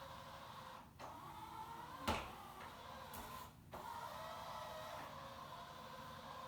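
Samsung Jetbot Mop robot floor cleaner's motors whirring steadily as it drives and spins its mop pads. The whir breaks off briefly twice, and there is a single sharp knock about two seconds in.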